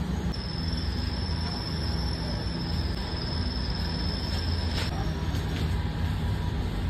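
Steady low mechanical rumble with a thin, high whine on top that cuts off about five seconds in.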